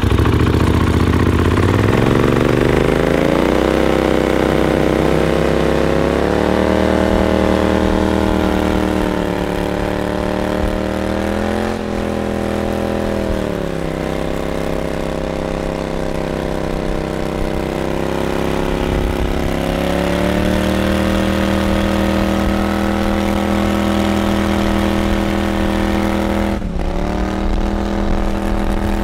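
Duck boat's mud motor, a 37-horsepower engine built up with a cam and race gas to close to 60 horsepower, running the boat hard across the water. It revs up over the first few seconds, holds at speed with a few dips and rises in pitch, then drops sharply and picks back up near the end.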